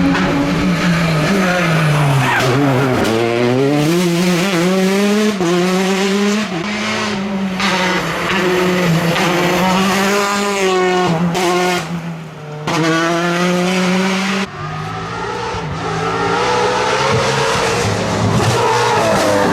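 Rally car engine driven flat out, its pitch dropping and climbing through gear changes and lifts of the throttle, with a short dip in level about twelve seconds in.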